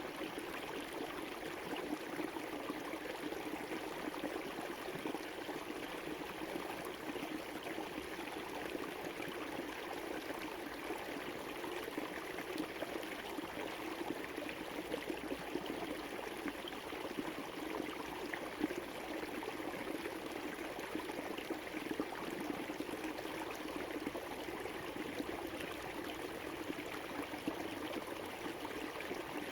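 River water flowing, a steady rush with small irregular splashes.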